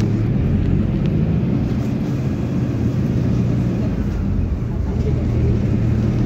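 Interior of a PAZ-320402-04 bus under way: the engine drones steadily, its pitch dipping slightly and rising again about four to five seconds in, over a haze of road noise.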